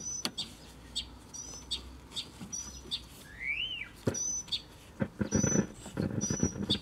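Small birds chirping repeatedly in short high notes, one call sliding up and back down, over a faint low hum. About five seconds in, a rough scratchy noise joins underneath.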